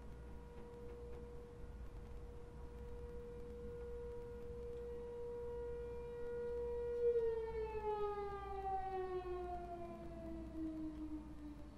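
Outdoor tornado warning siren sounding a steady tone that slowly grows louder, then winding down with a falling pitch from about seven seconds in. The siren is signalling a tornado warning.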